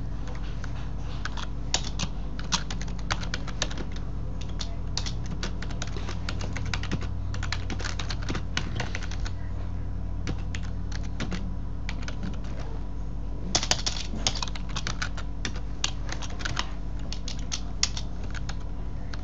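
Computer keyboard typing in irregular runs of keystrokes, with a denser flurry about two-thirds of the way through, over a steady low hum.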